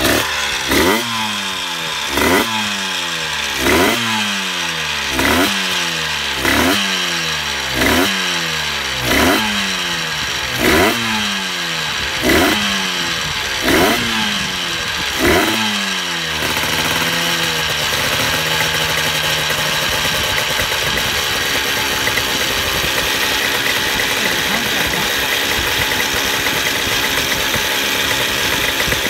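Yamaha TZ125 single-cylinder two-stroke racing engine being blipped over and over, about every second and a half, its revs falling back after each blip. About 16 seconds in, it settles into a steady idle.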